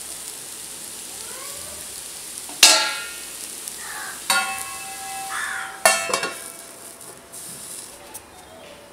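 Raw banana slices sizzling in oil in a nonstick frying pan as they are stirred with a wooden spatula. Three sharp clinks come a second or two apart, and the second one rings on for about a second.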